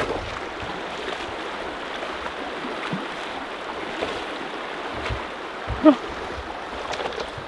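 Steady rush of river water running over rocks in a shallow riffle.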